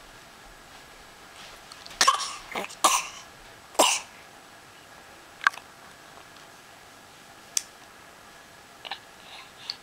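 Baby putting on a fake cough: a quick run of three or four short coughs about two seconds in, then two brief, sharp single sounds a few seconds later.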